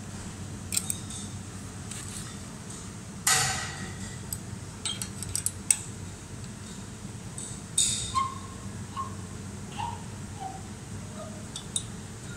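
Light metallic clicks and clinks of a steel Allen key working a screw on a stainless-steel homogenizer block and knocking against its steel rods, with a louder ringing clink about three seconds in and another near eight seconds, over a steady low hum.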